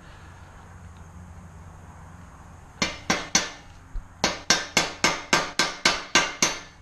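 A hammer striking repeatedly: three quick blows, a short pause, then a steady run of about ten blows at roughly four a second, each with a short ring.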